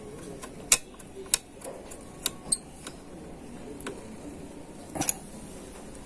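Sheet-metal bracket on a computer's metal chassis clicking and tapping as it is handled and pressed into place: about six sharp, scattered clicks, the loudest just under a second in.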